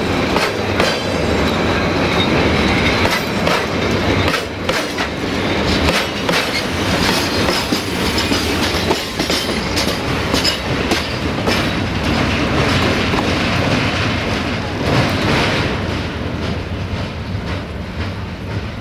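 Freight train of tank wagons rolling past, wheels clacking over rail joints in a steady stream of clicks; it fades near the end.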